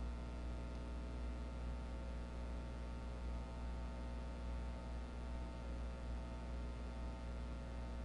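Steady electrical mains hum with a ladder of overtones and a faint hiss, unchanging throughout.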